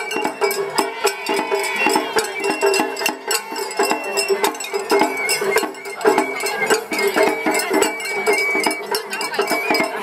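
Japanese festival float hayashi music: a high bamboo flute holding and stepping between notes over rapid, dense drum and gong strikes.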